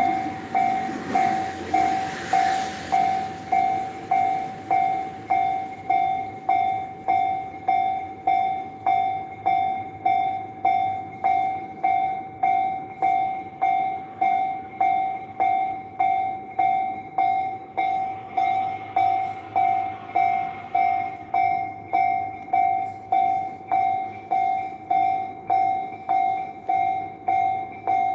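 Railroad crossing warning bell ringing steadily, one high tone struck about three times every two seconds, with a brief rush of noise near the start.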